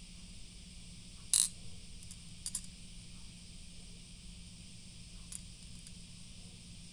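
Meiji Marble candy-coated chocolates clicking against each other and the ceramic dish as fingers move them: one sharp click about a second and a half in, then a few fainter clicks, over a steady faint hiss.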